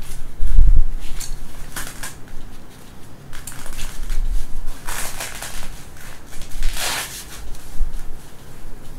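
Rustling and crinkling as a padded baby-cot mattress and its fabric cover are pressed and tucked into the play yard's frame, in several short scrapes with pauses between them. A few low thumps come in the first second.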